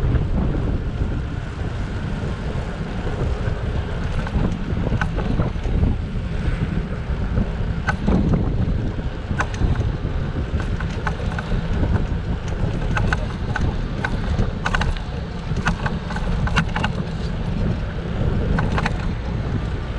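Wind buffeting the microphone of a camera riding along on a bicycle: a steady, loud low rumble, with scattered sharp clicks and rattles from about eight seconds in.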